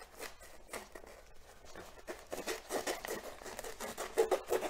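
Scissors cutting across a sheet of frisket masking film, with the plastic sheet crinkling: a run of small, irregular snips and crackles, a little louder near the end.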